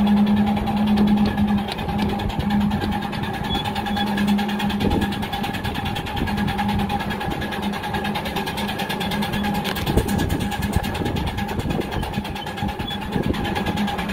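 Miniature steam railway train running, heard from an open passenger carriage: a steady rumble of wheels on the track with a constant low hum.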